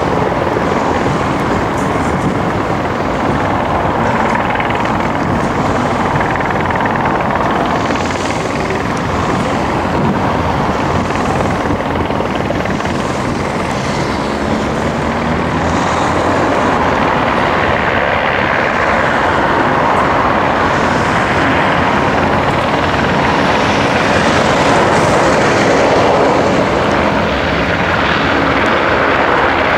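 Airbus A400M's four Europrop TP400-D6 turboprop engines running with their eight-bladed propellers turning: a loud, steady drone.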